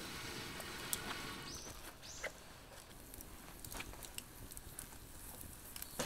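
Quiet outdoor campsite ambience: a faint steady hiss broken by scattered small clicks and ticks, with two short rising chirps about a second and a half to two seconds in.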